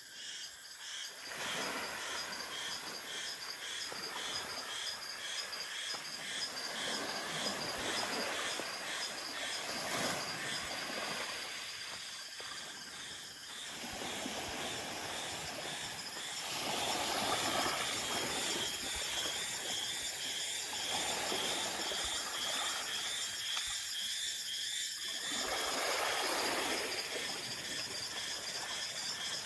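Small waves washing onto the shore in swells that rise and fade every few seconds. Insects chirp in quick, even pulses throughout.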